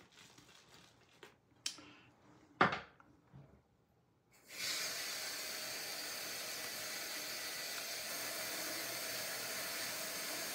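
A few faint handling sounds and one sharp knock, then a tap that starts suddenly about four and a half seconds in and runs with a steady, even hiss of water.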